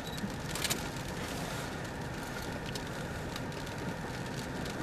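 Steady noise inside a vehicle's cabin, with a few faint clicks, one a little under a second in.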